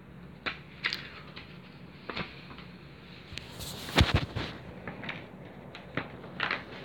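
A few scattered short clicks and knocks over a low steady hum, the loudest about four seconds in.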